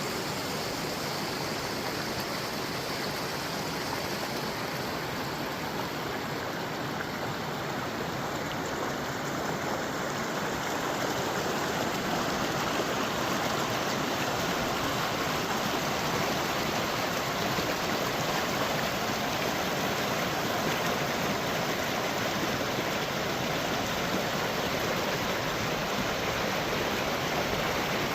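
A forest stream flowing steadily over rocks, a continuous rushing and babbling of water that grows slightly louder about eleven seconds in.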